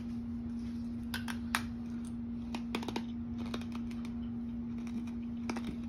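Hard green rock candy crunching between the teeth as a few scattered sharp clicks in small clusters, over a steady low hum.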